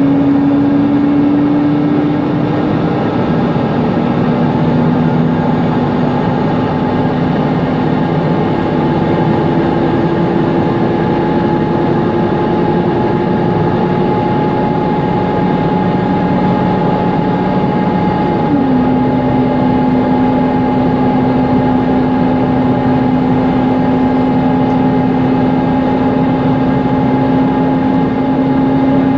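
Mercedes-Benz Conecto NG T city bus under way, heard from inside: its OM 936 G natural-gas engine and noisy cooling fan run steadily with a constant whine. The engine's pitch climbs slowly, then drops suddenly about two-thirds of the way through.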